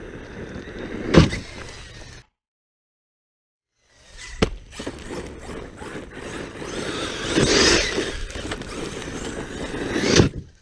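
Arrma Kraton V4 6S brushless RC monster truck running over gravel and dirt, with hard landing impacts about a second in, at about four and a half seconds, and a loud one just before the end. The sound drops out completely for under two seconds partway through.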